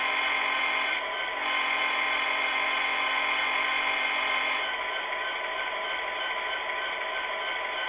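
Simulated diesel locomotive engine sound from a SoundTraxx Tsunami decoder, playing loudly through the small speaker inside an HO-scale SD70M model with its motor volume turned up to maximum. It is a steady, many-toned engine drone, and a higher layer drops out about a second in, returns, then stops a little over halfway through.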